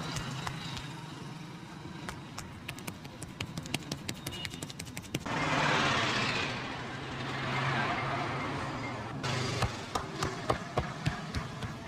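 Quick, irregular slaps and taps of hands on a head during a street barber's head massage, over a steady low traffic hum. About five seconds in, a loud rushing noise covers the taps for some four seconds; then the taps resume.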